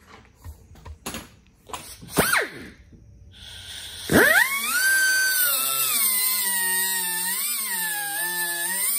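A few light knocks, then a small handheld cut-off wheel is blipped briefly about two seconds in. About four seconds in it spins up again with a steep rising whine and cuts into steel, running on with a harsh hiss. Its pitch sags and recovers as the disc bites into the metal.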